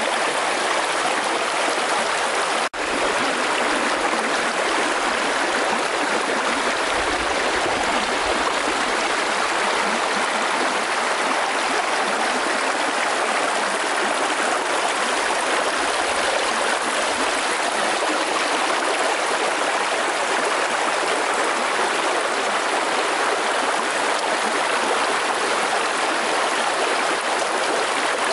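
Shallow rocky stream running steadily over stones, an even water noise throughout, with a brief dropout in the sound about three seconds in.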